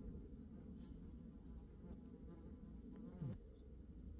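Flies buzzing around the microphone. One passes close about three seconds in, its buzz falling in pitch as it goes by. A faint high chirp repeats about every half second.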